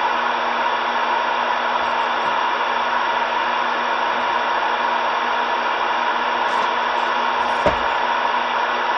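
CB radio receiver tuned to 27.375 MHz (channel 37) putting out a steady loud hiss of static with no signal on the channel, a faint steady tone running through it. A single short click comes near the end.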